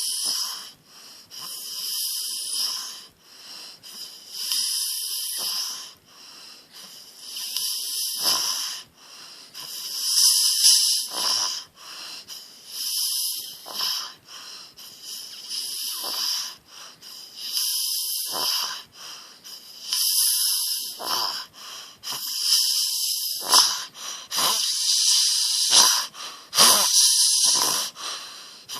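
A sleeping young man snoring heavily, with loud, hissy, wheezing breaths that repeat about every two and a half seconds.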